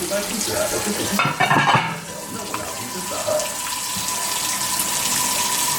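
Water running from a kitchen faucet into the sink, splashing steadily and growing a little louder toward the end.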